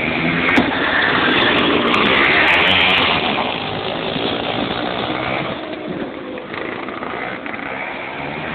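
A 100cc two-stroke kart engine running, loudest for the first three seconds and then somewhat quieter.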